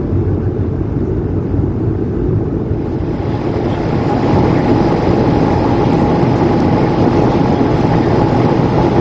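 Steady cabin noise of an Airbus A220-300 in flight: the low rush of airflow and its geared turbofan engines. About three seconds in it grows a little louder and brighter, and a faint steady hum joins it.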